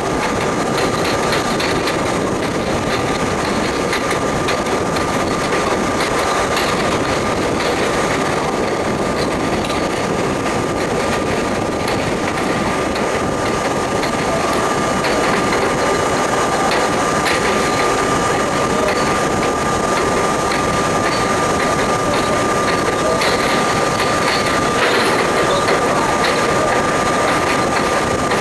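R32 subway train running at speed, heard from inside the front car: a steady rumble of wheels on rail with a constant high hum.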